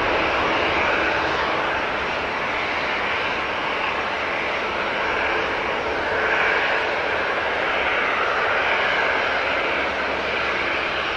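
Airbus A330 airliner's twin jet engines sounding steadily as it flares and touches down on the runway, a broad roar with a wavering whine on top that swells slightly about six seconds in.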